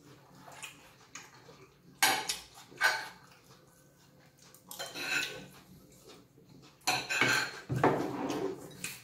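Metal forks clinking and scraping on ceramic dinner plates of rice: two sharp clinks about two and three seconds in, more scraping around the middle, and a longer stretch of scraping near the end.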